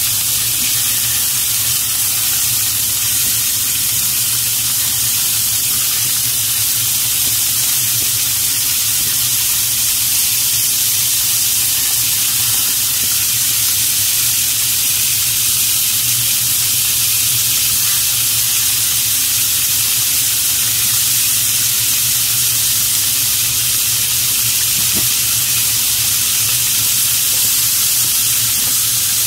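Pork belly slices (samgyeopsal) sizzling steadily in their own rendered fat in a frying pan, an even hiss throughout.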